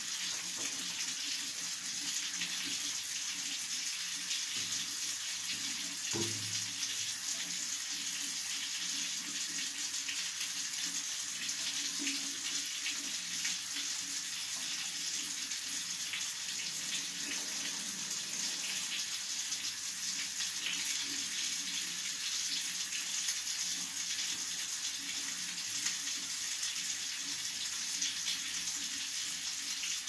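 A thin stream of water from a bathroom tap falling steadily into a ceramic washbasin: a constant splashing hiss.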